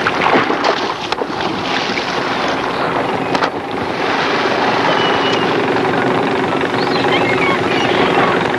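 Lobster boat's engine running steadily, with the splash of a wooden lobster trap thrown overboard at the start and a few more splashes and knocks in the first seconds.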